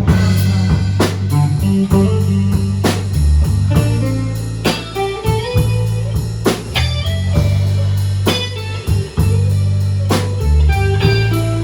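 Slow blues played by a band with no singing: guitar fills over a steady bass line, with a drum kit marking a slow beat about every two seconds.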